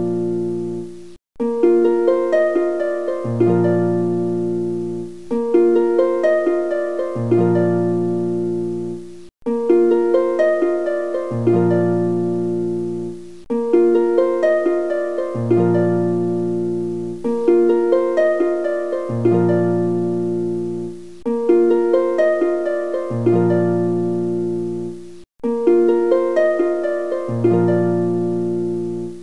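Background music: a plucked-string, harp-like tune played as a short loop that repeats about every four seconds, with brief gaps in between.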